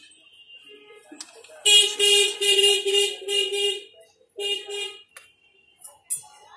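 A horn honking in a rapid run of short, loud blasts lasting about two seconds, then one more short blast.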